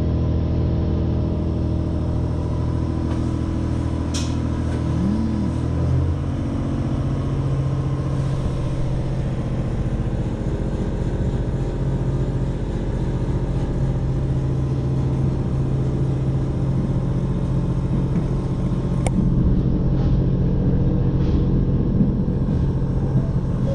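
A JR Hokkaido H100 DECMO diesel-electric railcar pulling away from a station and running on, heard from inside the passenger cabin. Its engine drones steadily, with a step in pitch about six seconds in, and a few light clicks.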